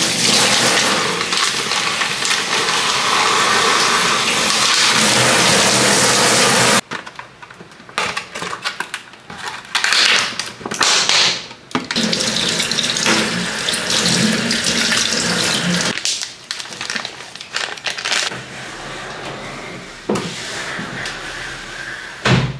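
Water running in a steady gush that cuts off suddenly about seven seconds in, followed by scattered short knocks and rustles.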